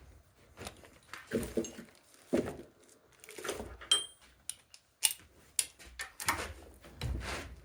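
Irregular metallic clinks, knocks and handling noise from tools and parts on a manual transmission while its bolts are being fitted and tightened, with one clear ringing clink about four seconds in.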